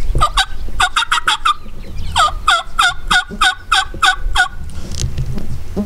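Turkey yelping in two runs: a quick string of about seven yelps, then a slower string of about nine, each note dropping in pitch.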